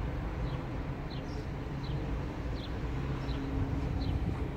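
A bird repeating a short, high, falling chirp about every three-quarters of a second, over a steady low background rumble.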